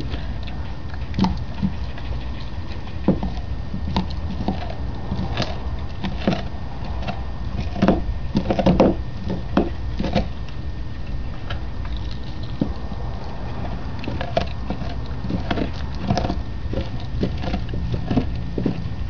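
A dog gnawing and crunching a raw meaty bone: irregular cracks and clicks, busiest about eight to nine seconds in, over a steady low rumble.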